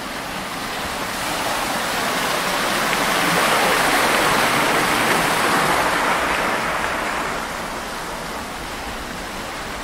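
Rushing water noise on a rainy street, swelling over a few seconds and fading back to the steady hiss of rain.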